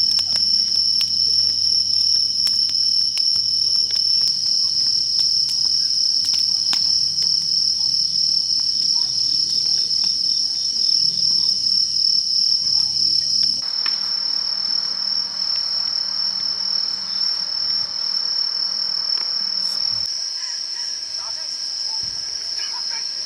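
Crickets chirping in a steady, high, continuous trill. The fainter background under it changes abruptly twice, about 14 and 20 seconds in.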